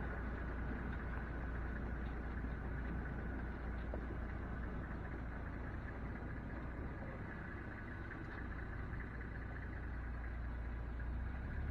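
Car engine running with a steady low rumble, heard from inside the vehicle.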